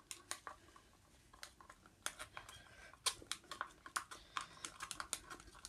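Faint, irregular clicks and taps of a plastic mixing cup and stirring stick being handled while pink epoxy resin is scraped and poured, growing busier about two seconds in.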